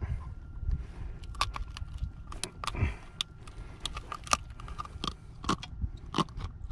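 Irregular light clicks and knocks, a few every second, over a low steady rumble.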